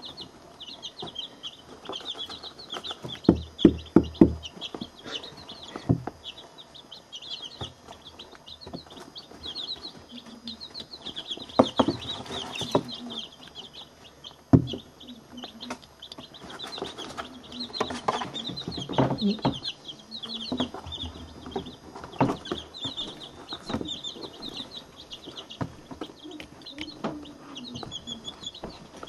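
A brood of chicks a week to ten days old peeping constantly, many short high chirps a second. A few sharp knocks close to the microphone are the loudest sounds: a quick run of four about three to four seconds in, and single ones later.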